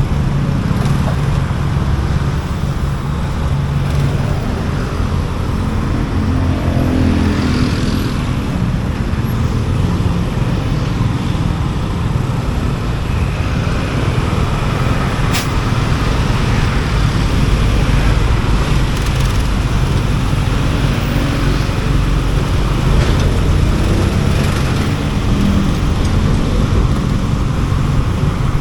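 Motorcycle engine running while riding through city traffic, with road and traffic noise around it. The engine note rises and changes several times, most clearly about six to nine seconds in.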